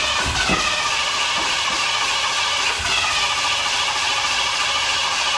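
Steady machine noise: a loud, even whoosh with a low hum and a couple of faint falling whines.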